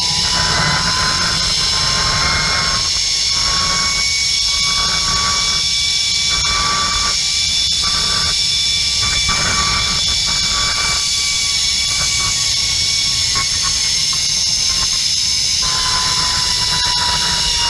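Zip-line trolley's pulley wheels running fast along the steel cable with a steady high whine, over heavy wind rush on the microphone. The whine dips in pitch near the end.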